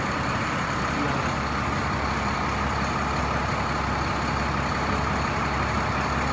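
A large coach bus engine idling steadily beside the listener, a constant low hum with no change.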